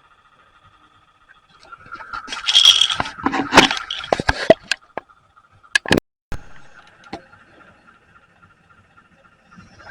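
Loud scraping and rustling close to the microphone for about three seconds, then a few sharp clicks, with a faint steady whine underneath before and after.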